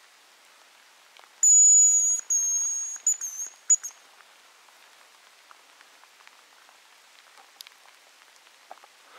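Hazel grouse decoy whistle blown in the grouse's song, very high and thin: two long held notes, then a few quick short ones, ending about four seconds in. Faint patter of light rain underneath.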